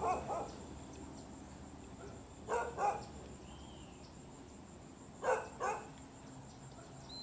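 A dog barking: two quick double barks, the second pair a little under three seconds after the first.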